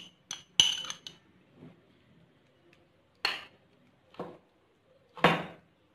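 Metal spoon against a plate while spreading yogurt over raw beef: two short ringing clinks in the first second, then three scraping strokes about a second apart.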